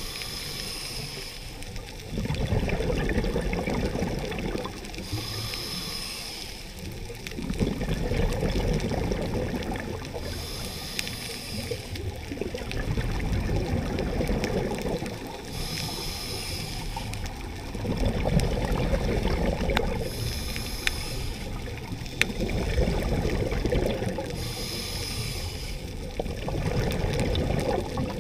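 Scuba diver breathing through a regulator underwater: a short hissing inhale, then a louder rumbling rush of exhaled bubbles, the cycle repeating about every five seconds.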